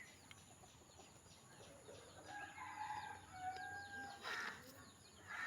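A rooster crowing faintly once, a long held call about two seconds in, over many small birds chirping quickly. A brief noise comes about four seconds in.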